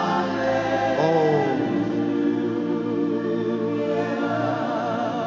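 Live gospel worship music: voices singing long, wavering notes over sustained organ chords.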